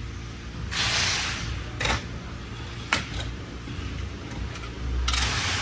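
Hands fitting a metal ring into a 6L80 automatic transmission: a click about two seconds in and a sharper click about three seconds in, with short hissy rustles near the start and the end, over a steady low hum.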